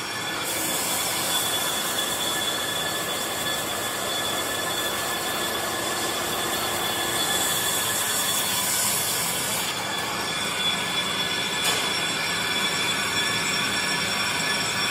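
Bench brake lathe spinning a brake rotor while its face is resurfaced, a steady metallic hiss with a high ringing squeal from the rotor.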